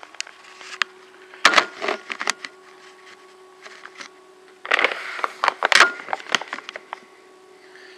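Knocks and clatter of kitchen things being handled at a sink. They come in two bursts, a short one about a second and a half in and a longer one from about halfway, over a steady low hum.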